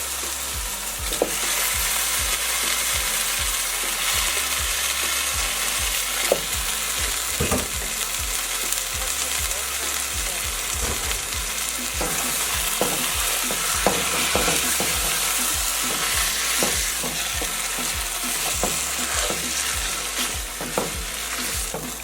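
Chicken pieces sizzling steadily in hot oil and curry masala, being stirred, with frequent short knocks of the utensil against the pot.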